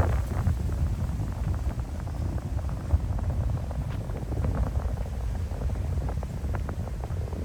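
Wind buffeting the microphone, a fluttering low rumble, with a few faint clicks about four and six and a half seconds in.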